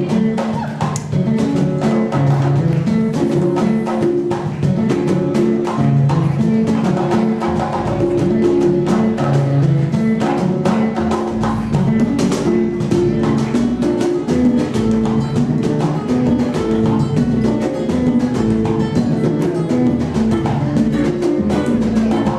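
Live Afro-Peruvian band playing a steady groove: upright bass and other pitched instruments over dense, regular percussion hits.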